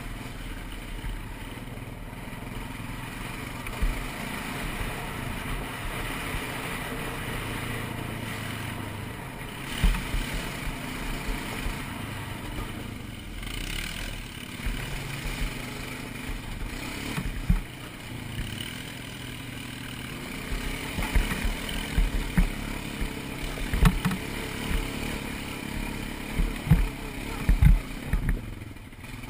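ATV engine running under way on a dirt trail ride, with repeated short low thumps, more frequent in the second half.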